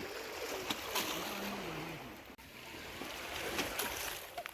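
Water lapping and splashing with a few short knocks, and faint, distant voices.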